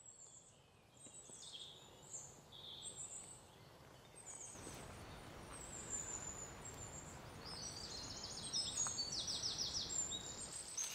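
Wild birds chirping and calling with short high-pitched notes over a steady outdoor hiss that grows louder about halfway through; near the end, rapid pulsed trills repeat several times.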